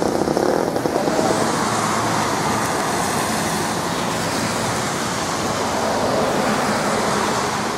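Steady road traffic noise: a continuous rushing hiss, swelling a little a second or two in.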